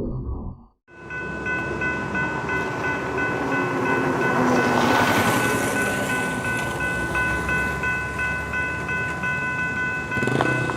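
Train running past with its horn held on a steady chord over the rumble of the train; the noise swells to its loudest about four to five seconds in.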